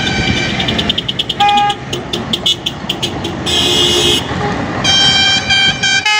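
Truck horns sounding during a truck parade: a quick run of short toots, then longer held blasts, over passing traffic. The horn stops abruptly near the end.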